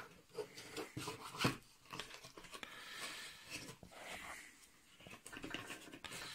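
Handling noise of tissue paper and a cardboard box being rummaged through: rustling and crinkling with small knocks and taps, the sharpest about one and a half seconds in.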